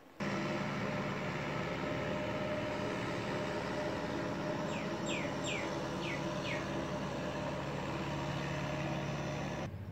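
A steady engine hum that starts abruptly and stops abruptly near the end. A bird gives a quick run of five falling chirps about five seconds in.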